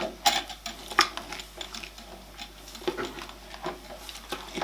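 Grain mash being stirred in a brewing pot, with a few sharp knocks and clinks of the stirrer against the pot.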